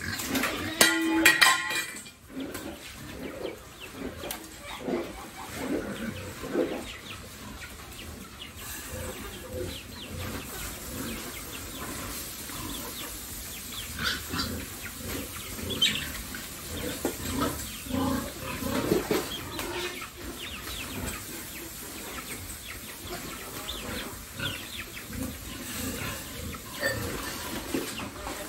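A group of pigs eating at a feed trough: a steady run of short, irregular grunts and chomping noises, with one loud squeal about a second in.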